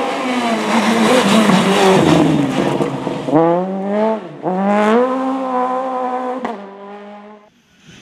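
Rally car engine at full throttle: the revs fall and blur in the first seconds, then climb hard, drop sharply at a gear change about four seconds in and climb again. A sharp crack comes near the end as the car fades away.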